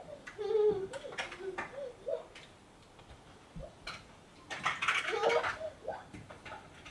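A young child's high-pitched voice making short wordless sounds, with a few light clicks. About two-thirds of the way in comes a brief burst of rustling mixed with voice.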